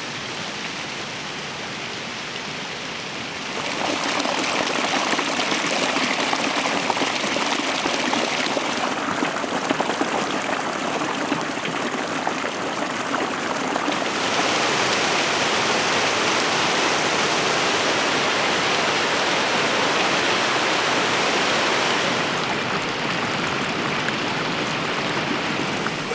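Running water from a stream: a steady rushing hiss that gets louder about four seconds in, then changes in brightness in abrupt steps several times.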